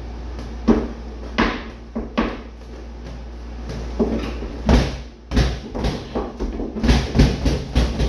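Irregular knocks and slaps of padded 16 oz boxing gloves hitting small balls hung on strings, mixed with heeled shoes stepping on a wooden floor, more frequent near the end. A low steady hum runs underneath.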